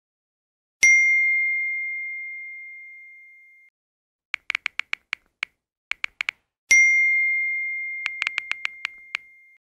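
Smartphone message-notification chime: a single bright ding that rings out and fades over about three seconds, heard twice, about a second in and again near seven seconds. Between and over them come quick runs of short taps, like typing on a phone keyboard.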